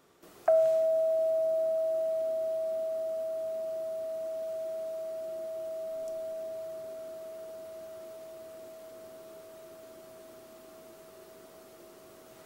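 A single struck metal tone: hit once, then one clear, steady pitch that rings on and slowly fades away.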